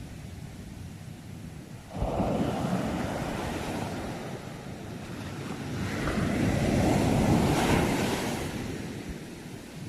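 Sea waves breaking over a steady background of surf. One wave crashes suddenly about two seconds in and slowly washes back; a second builds, peaks a couple of seconds from the end and fades.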